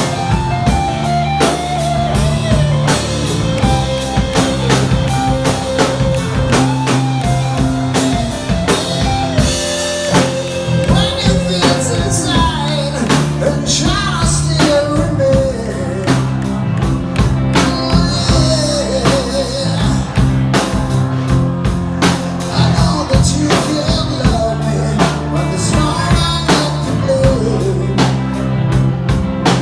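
Rock music with a steady drum-kit beat, guitar and a singing voice.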